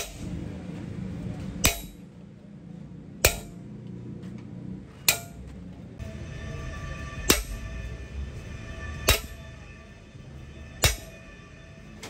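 Hammer striking a hand chisel into a sheet-metal panel, engraving decorative outlines: seven sharp metallic blows about two seconds apart, each leaving a brief ringing tone from the metal.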